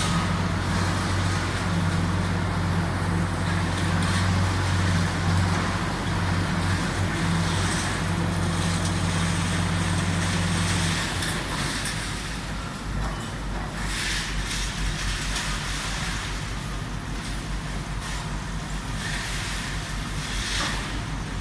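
Street traffic with a heavy vehicle engine running close by, a steady low hum. The engine sound drops away about eleven seconds in, leaving lighter traffic noise.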